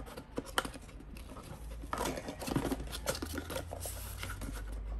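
Small cardboard box being opened by hand: the tucked tab and flaps scrape and rustle, with a few sharp clicks in the first second and denser rustling from about two seconds in.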